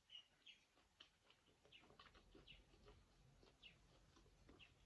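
Faint mouth sounds of someone chewing food: soft, irregular little clicks and smacks.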